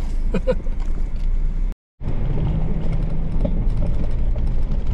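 Car engine running steadily at low speed on a rough, stony off-road track, with small rattles of the vehicle over the stones, heard from inside the cabin. The sound cuts out for a moment about two seconds in.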